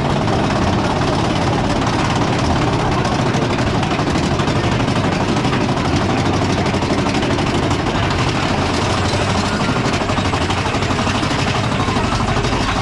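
Mine-train roller coaster climbing a chain lift hill: a steady, rapid clatter of the lift chain and the anti-rollback ratchet under the cars.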